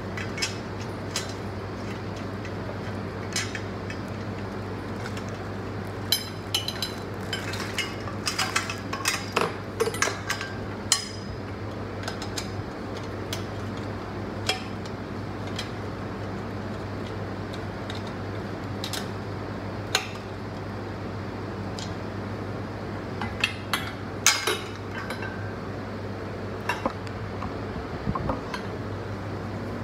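White metal tubes of a laundry organizer frame clinking and knocking as they are handled and fitted together: scattered sharp clicks, busiest in two stretches about a quarter of the way in and again past the middle, over a steady low hum.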